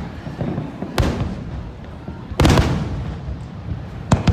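Fireworks shells bursting: a sharp bang about a second in, a louder, longer burst with a trailing rumble around two and a half seconds, and two quick bangs near the end.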